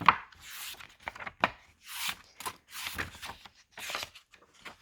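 Pages of a picture book being handled and turned: a string of short, irregular paper rustles and light taps.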